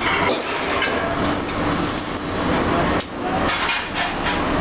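Stir-frying in a steel wok over a gas wok burner: the steady rush of the burner and sizzling, with the metal ladle repeatedly clanking and scraping against the wok.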